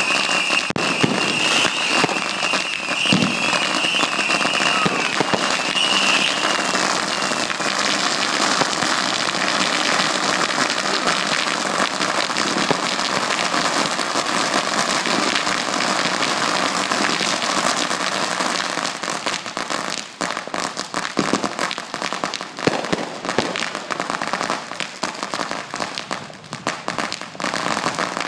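Fireworks going off on the ground: dense crackling and popping, with a high whistle over the first several seconds. About two-thirds of the way through, the crackle thins to scattered, uneven pops.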